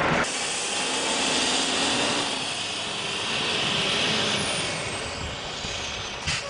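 Heavy vehicle's engine running, a steady rush of engine noise with a high whine, easing off over the last second or two.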